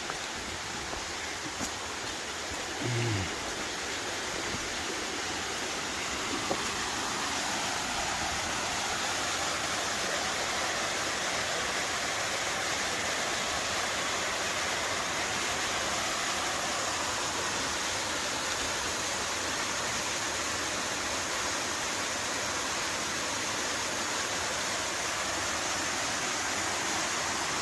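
Rushing water from a waterfall, a steady hiss that grows a little louder over the first several seconds. A brief low sound about three seconds in.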